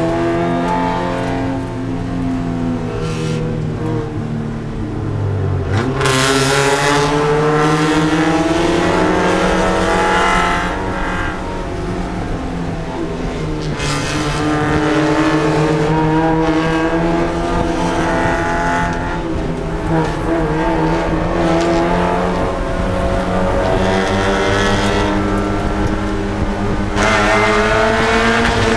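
A Spec Miata race car's four-cylinder engine heard from inside the cabin, revving up and falling back again and again at low road speed.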